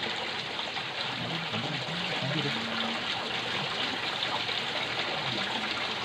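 Water of a small stream running steadily over rocks, a continuous trickling rush.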